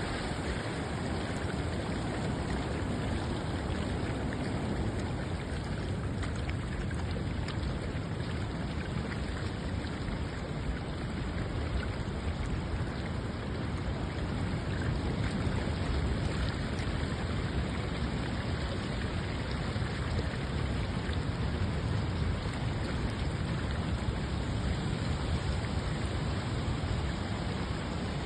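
Steady rushing water, an even noise with no breaks or separate events.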